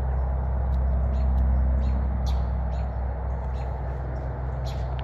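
Steady low hum, with faint short chirps scattered through it.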